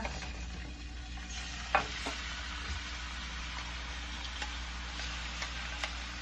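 Diced raw chicken breast sizzling steadily in a hot nonstick frying pan as it is scraped in off a plate with a spoon. A few sharp clicks of the spoon, the loudest about two seconds in.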